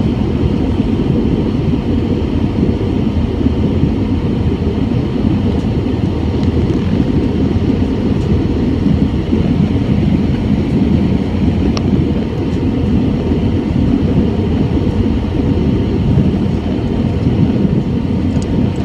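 Steady cabin roar inside an Airbus A320 in flight: engine and airflow noise heard from a window seat over the wing, heavy in the low rumble. A faint click sounds about two thirds of the way in.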